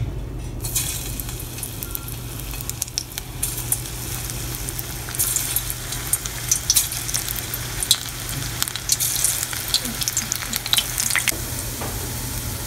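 Marinated soya chunks deep-frying in hot oil in a stainless steel kadai: sizzling starts about half a second in, with crackling pops as more pieces go in, busiest in the middle. A low steady hum runs underneath.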